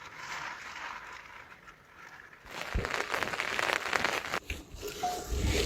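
Dry rustling and crackling, louder and denser from about halfway through, with a short high note near the end.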